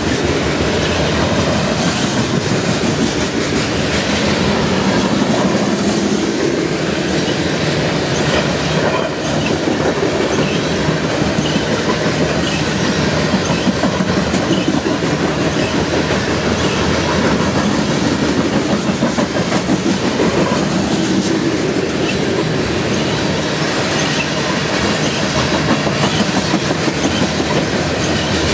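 BNSF covered hopper cars of a grain train rolling past close by: a steady rumble with the wheels clacking on the rails.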